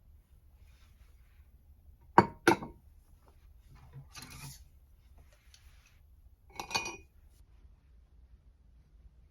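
Hard objects knocking and clinking: two sharp knocks a moment apart, a brief rustle, then a ringing clink, like dishes or utensils being handled.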